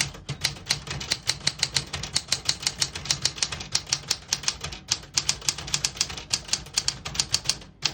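Smith-Corona Galaxie Deluxe manual portable typewriter typing a sentence: quick, even keystrokes at about six a second, with a short break about five seconds in.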